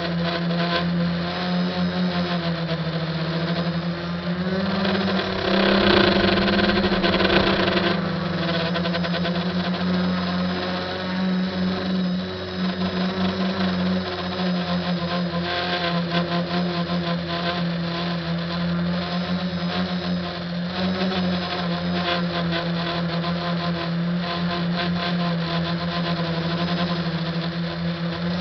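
An SK450 quadcopter's four brushless motors and propellers, heard from its onboard camera, give a steady buzzing hum whose pitch shifts up and down with the throttle. It grows louder and rougher for a couple of seconds about five seconds in.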